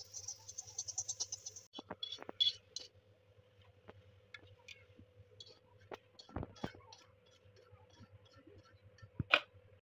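Chillies sizzling in hot oil in an iron kadhai for the first couple of seconds, the hiss stopping suddenly, then scattered clicks, taps and scrapes of a fork and utensils against the metal pan.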